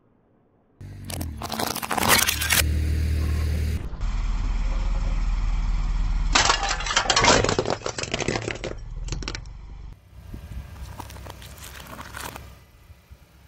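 A car tyre rolling over and crushing objects in several short takes: crunching, cracking and crackling over the low rumble of the car, loudest about a second and a half in and again from about six and a half to nine seconds in, with smaller crackles as a soft vegetable is flattened near the end.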